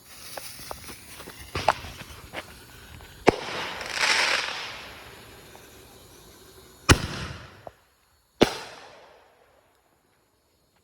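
Consumer fireworks going off: a hiss with scattered crackling pops, then a sharp bang about three seconds in followed by a swelling hiss. Two more sharp bangs come about seven and eight and a half seconds in.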